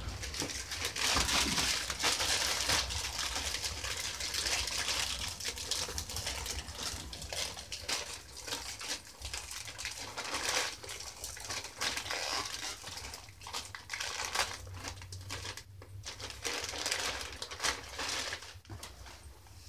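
Clear plastic bag crinkling and rustling unevenly as it is handled, somewhat louder in the first few seconds.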